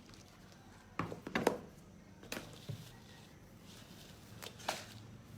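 Handling noises on a work table: a few separate light knocks and taps as craft materials and tools are picked up and set down, with several close together about a second in.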